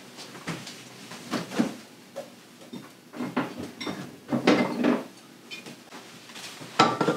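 Kitchen handling sounds: a handful of separate knocks and clatters as a refrigerator door is opened and a bottle is taken out, the loudest clatter about halfway through.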